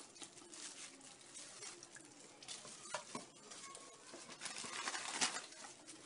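Faint rustling of a plastic food glove and biscuit packaging, with light scattered taps and clicks as biscuits are dipped into a plate of milk.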